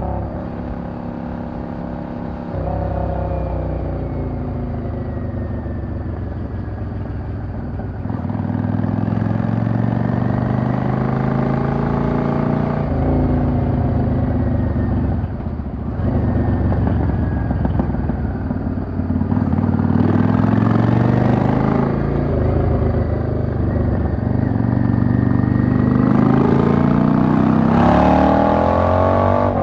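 Yamaha XVS650 V-Star's air-cooled V-twin engine and exhaust under way, the pitch climbing as it accelerates and dropping back at each gear change, several times over. Near the end it revs up steeply.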